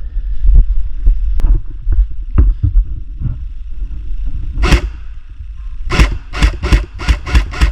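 Airsoft gun firing a fast string of shots, about five a second, starting near the end after one single shot, over a steady low rumble.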